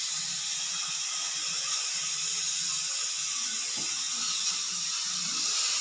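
Pressure cooker whistle: steam venting through the weighted valve in a steady, high hiss.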